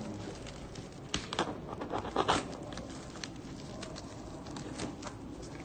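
Plastic wrapping and packing tape crinkling and tearing as taped packages are pulled open by hand, with a few sharp crackles about one and two seconds in.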